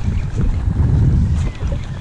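Wind buffeting the microphone: a loud, ragged low rumble.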